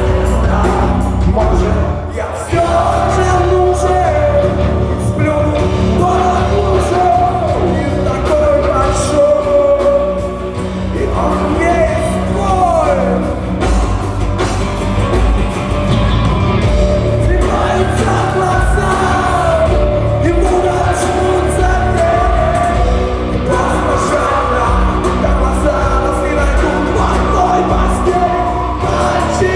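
Live rock band playing with drums, bass and guitars under a lead singer's vocals.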